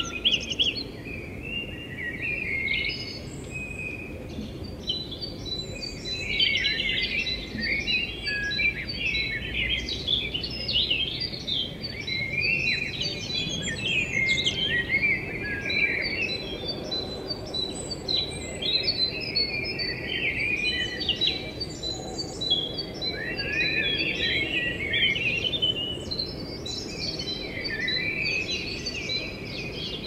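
A dense chorus of many small birds chirping and singing at once, their calls overlapping without pause, over a steady low background noise.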